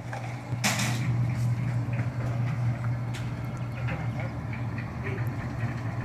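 Portable drum concrete mixer running with a steady low hum, with a short hiss about a second in and scattered light clicks.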